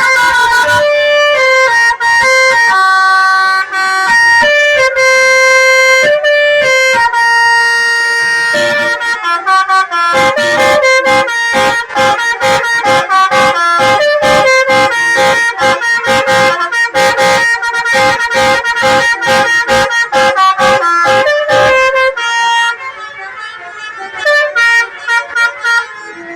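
Indonesian bus basuri (telolet) musical air horn playing a tune in held, stepped notes, then breaking into fast staccato repeated notes about nine seconds in. Near the end it drops to a quieter level with scattered notes.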